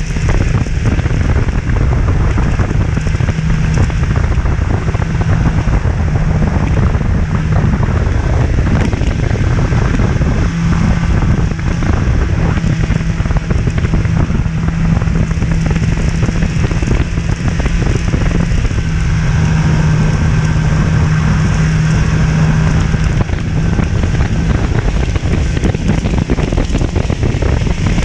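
Snowmobile engine running at a steady cruising speed, a constant low drone, with wind rushing over the microphone and a crackling hiss from the track on the snow.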